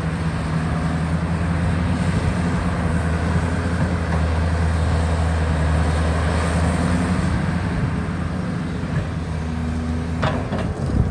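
Heavy diesel construction machinery, an excavator working with dump trucks, running steadily with a deep engine drone. Near the end there is a brief sharp sound that falls in pitch.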